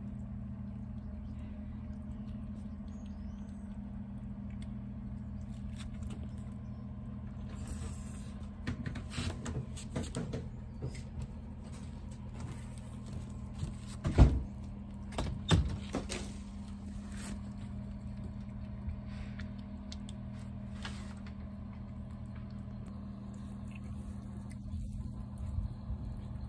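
Steady low machine hum. Light clicks and taps come in about a third of the way through, and two sharp knocks about a second and a half apart fall around the middle and are the loudest sounds.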